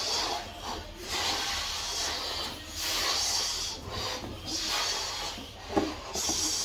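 Children blowing hard into latex balloons to inflate them: repeated breathy puffs of air, each about half a second to a second long, with short pauses for breath between them.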